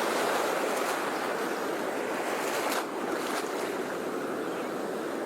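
Sea waves washing on the shore: a steady rushing hiss of surf.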